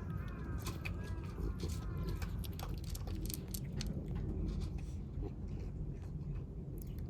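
Stray kittens chewing and crunching their food, with many short crunches. A bird calls repeatedly in the background for the first two seconds or so.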